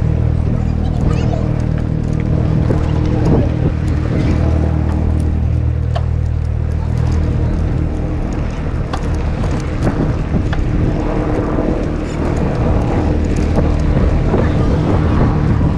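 A steady low motor hum, weakening about six seconds in and coming back a few seconds later.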